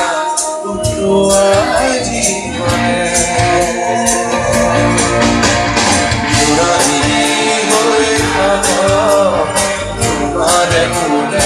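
Live stage music: a gliding melody line over a steady percussion beat.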